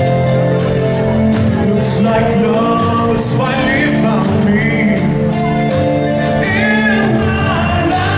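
Loud live rock band with keyboards, electric guitars and drums, and a choir singing along with the lead vocal, heard from the audience in a large hall.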